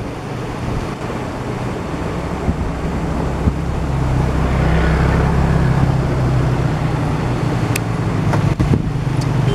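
A motor vehicle engine running close by, its steady low hum coming in about four seconds in and growing stronger, over wind noise on the microphone. There are a few sharp clicks near the end.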